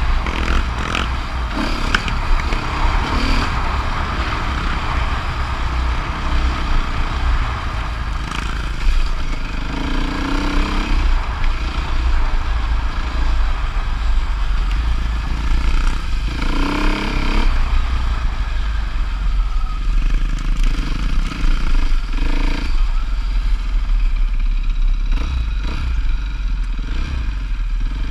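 Dirt bike engine running under the rider on a gravel trail, with heavy wind buffeting on the bike-mounted microphone and gravel clattering under the tyres. The engine note swells twice, about ten and sixteen seconds in.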